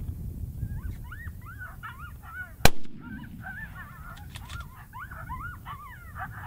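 A rapid string of high, arching coyote yips and whines, broken about two and a half seconds in by a single loud rifle shot. The calling carries on straight after the shot.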